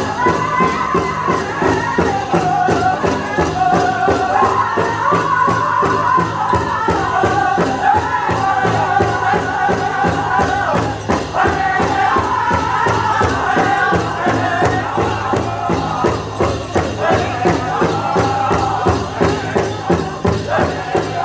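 Powwow drum group singing a Prairie Chicken dance song in unison over a steady, even drumbeat on the big drum.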